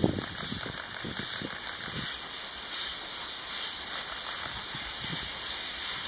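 C11 tank steam locomotive working toward the listener under steam, its exhaust beats chuffing unevenly over a steady hiss.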